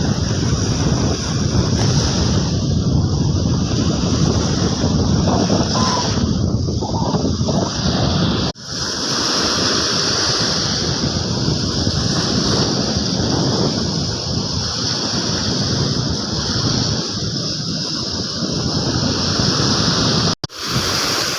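Sea surf breaking on the beach with wind buffeting the microphone, a steady loud rushing noise that cuts out abruptly twice.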